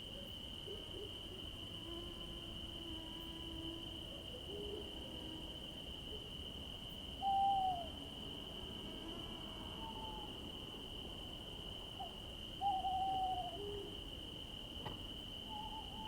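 Forest night ambience sound effect: insects trilling steadily at one high pitch, with scattered faint animal calls. Two louder short calls come about seven seconds in and about five seconds later.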